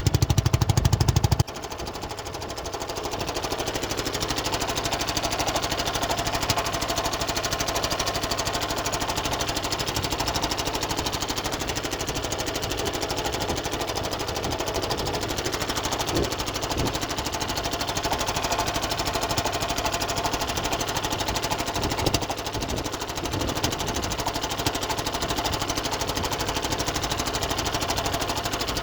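Small boat engine running steadily with a fast, even knocking beat, louder for the first second and a half.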